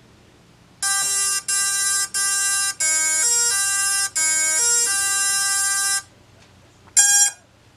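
Electronic beeps playing a short tune of changing pitches for about five seconds, then one more short beep near the end: the confirmation tones as the PID settings are saved and the flight controller resets.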